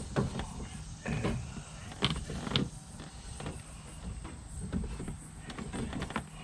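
Irregular knocks, clicks and rustles of hands working in a vehicle interior, handling speaker wire and plastic trim.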